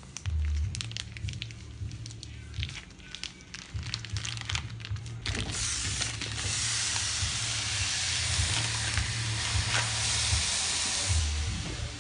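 Light clicks and handling noises, then about five seconds in raw ground beef goes into a hot skillet and starts sizzling steadily and loudly.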